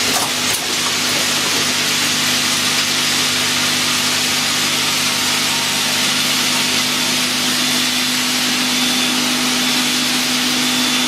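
Automatic bottle washing, filling and capping machine running: a steady hiss over a steady machine hum.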